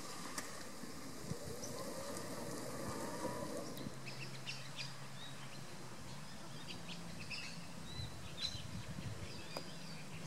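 Outdoor ambience: birds chirping in short, high calls, with a low steady hum that comes in about four seconds in.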